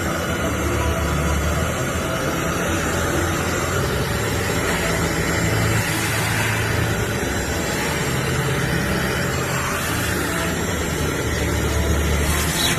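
BISSELL Little Green portable carpet and upholstery cleaner running: a steady motor drone with a low hum that shifts in pitch every few seconds.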